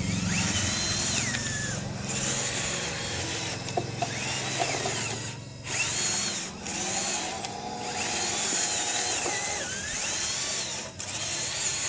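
Small electric gear motors of a toy RC construction vehicle whining as it drives and works, the whine rising and falling in pitch again and again, over a steady low hum.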